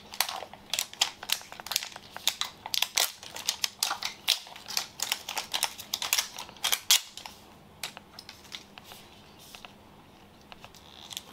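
Plastic toy packaging being handled and opened: a dense run of irregular sharp clicks and crinkles for about seven seconds, then a few scattered fainter clicks.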